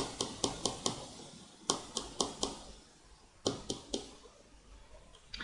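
Light, sharp taps in quick runs of about four a second, three runs with short pauses between, over faint room tone.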